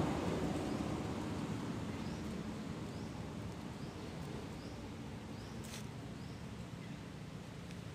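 Outdoor ambience: a low rumble, like a passing vehicle, dies away over the first few seconds. Then a faint short rising chirp, from a small bird or insect, repeats about once or twice a second, with one sharp click near the middle.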